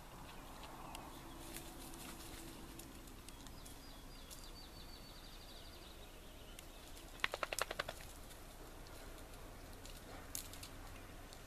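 Faint woodland ambience with a bird trilling a fast run of repeated high notes for about a second and a half, about four seconds in. A little after seven seconds comes a quick run of about eight sharp clicks, the loudest sound, with scattered small ticks elsewhere.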